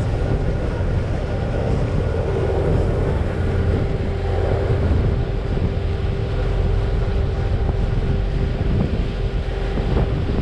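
A party fishing boat's engines running steadily under way, a constant low hum with a held tone, with wind rumbling on the microphone.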